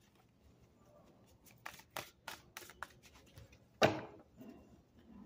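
Tarot cards being hand-shuffled: a run of quick, soft card clicks, with one louder knock about four seconds in as the deck is squared against the wooden table.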